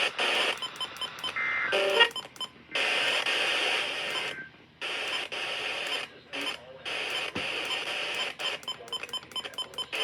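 NOAA Weather Radio broadcast between alert messages: a hissy radio channel that cuts in and out, with rows of short electronic beeps and a brief tone.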